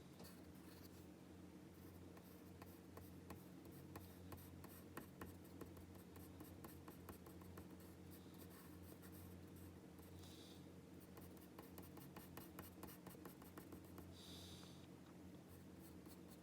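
Faint graphite pencil drawing on paper: rapid runs of short scratchy strokes, with two longer hissing strokes, one about ten seconds in and one near the end, over a low steady hum.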